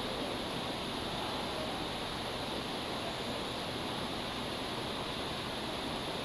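Steady, even rushing water noise from a large aquarium's water circulation.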